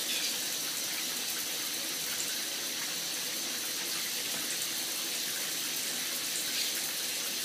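Water running steadily into a bathtub, an even splashing hiss.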